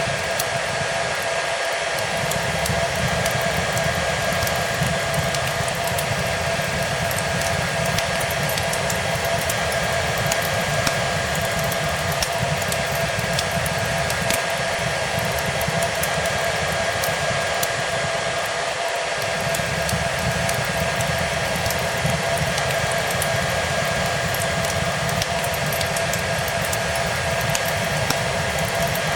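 Hair dryer running continuously, a steady airy whoosh with a constant motor whine, with faint crackles from a fireplace over it.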